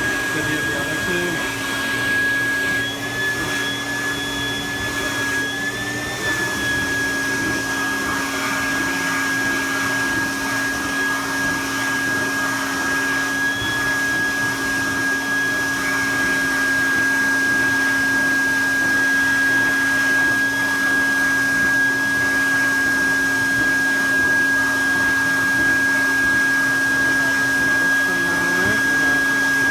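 Build-A-Bear stuffing machine's blower running steadily: a loud, even whirring with a steady high whine and a low hum, the pitch wavering briefly a few seconds in.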